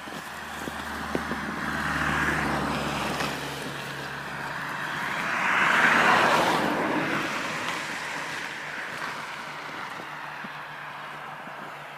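Road traffic: a car passing, its tyre hiss swelling to its loudest about six seconds in and then fading away.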